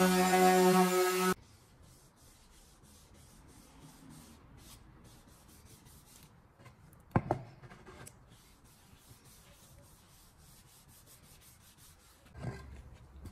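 A power tool's motor running at a steady pitch, which cuts off abruptly about a second in. Faint rubbing on wood follows, with a sharp knock midway and a duller thump near the end.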